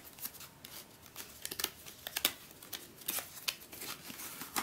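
Small cardboard puzzle box being opened by hand: the end flap is pried up and the box is squeezed and worked open, giving irregular scrapes, clicks and rustles of thin card.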